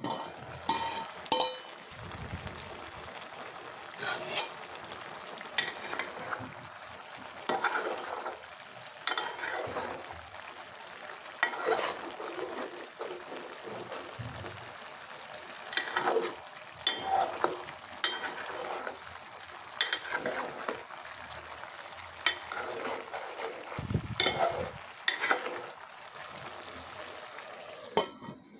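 Mixed vegetables sizzling and simmering in a pot while a metal spoon stirs them, scraping and clinking against the pot every second or two. The aluminium lid clanks as it comes off at the start and goes back on near the end.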